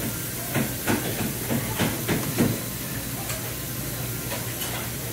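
Restaurant room noise: a steady hiss over a low hum, with snatches of voices during the first couple of seconds.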